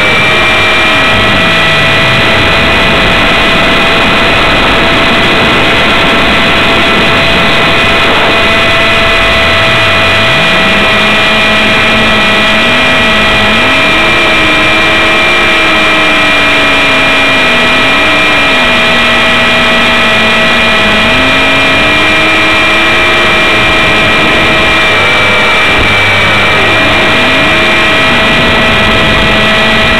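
450-class RC helicopter's electric motor and gear train whining at a steady pitch, heard loud and close from a camera on the helicopter itself. Beneath the whine a lower tone keeps rising and falling as the helicopter is thrown through aerobatic manoeuvres.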